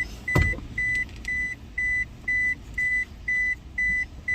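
A car's warning chime beeping evenly, one high beep about every half second. A single knock sounds about half a second in.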